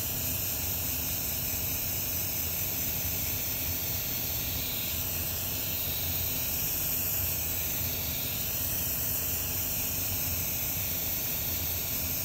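Airbrush spraying face paint: a steady hiss of air and paint.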